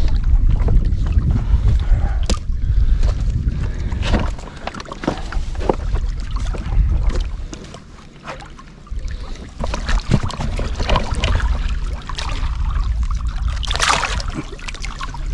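Wind buffeting the microphone, heaviest in the first few seconds, over water sloshing against rocks, with scattered clicks and scuffs from handling on the rocks. A short splash near the end.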